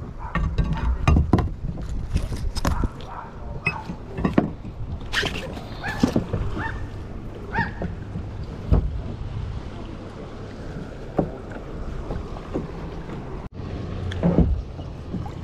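Knocks and clinks of gear being handled in a kayak, thickest in the first half, over a low rumble of wind on the microphone.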